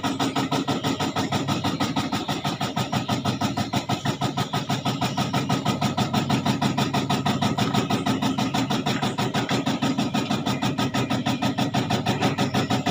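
A motor or engine running steadily at an even speed with a fast, regular pulsing beat.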